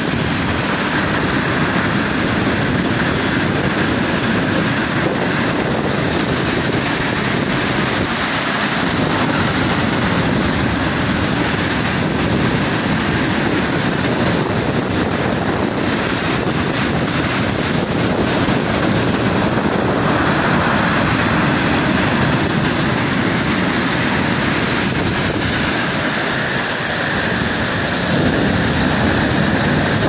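Storm surf on the Black Sea: waves breaking and washing up the beach and against a concrete groyne in a steady, continuous rush, with wind on the microphone.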